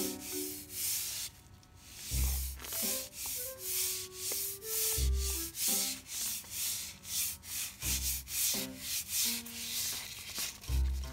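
Broom bristles brushed back and forth across a fabric floor in quick repeated strokes, about two or three a second. Background music with a low thump every few seconds plays underneath.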